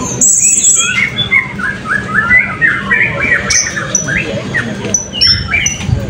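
Several caged blue-crowned hanging parrots (serindit) calling at once: rapid, overlapping chirps and short, shrill high notes, with a brief hissing note near the start.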